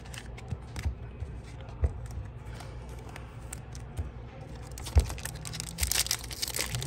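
Glossy chrome trading cards clicking and sliding against each other as they are shuffled in the hand, with one sharper click about five seconds in. Near the end a foil card-pack wrapper starts to crinkle as it is handled and torn open.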